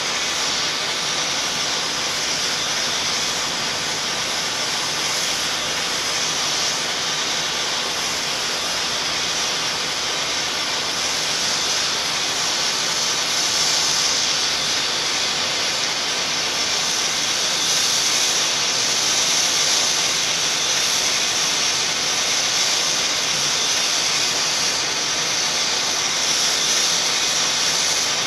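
Steady white-noise hiss, even and unbroken, strongest in the upper range.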